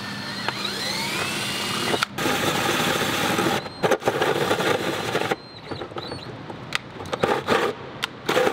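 DeWalt cordless drill cutting through a plastic airbox with a 4-inch bimetal hole saw. The motor whines and rises in pitch over the first two seconds, then gives way to a loud, rough cutting noise. In the last few seconds it breaks into short bursts as the saw finishes the hole.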